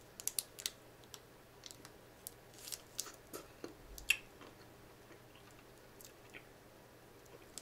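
Biting into and chewing a frozen Snickers ice cream bar, heard as faint scattered crunches and clicks of the hard chocolate coating, the sharpest about four seconds in.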